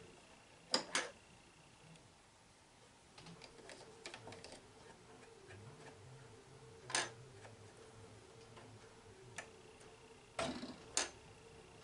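A handful of scattered light clicks and taps from a brush and fingers working in the open bobbin area of a sewing-embroidery machine, clearing out a stray piece of thread behind a stitching knot.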